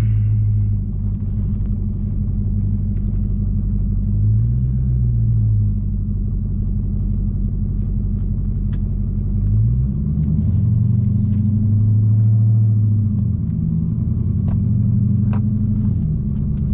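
Dodge Challenger Hellcat's supercharged 6.2-litre V8 heard from inside the cabin while driving. Its low drone rises and falls in pitch as the throttle comes on and off, briefly about four seconds in and in longer pulls from about ten seconds in.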